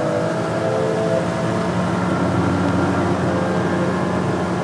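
Evinrude 250 outboard, a two-stroke V6, running steadily at speed as the boat planes. Its even hum sits under the rush of wind and water from the wake.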